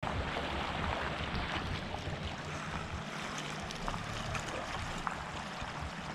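Outdoor wind and water ambience: a steady rushing noise with an uneven low rumble of wind on the microphone and a few faint scattered ticks.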